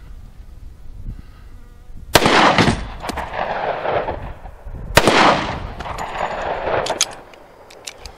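Two shots from a 1911 pistol firing .45 ACP Federal Hydra-Shok 165-grain hollow points, about three seconds apart. Each is followed by a long echo that dies away over about two seconds.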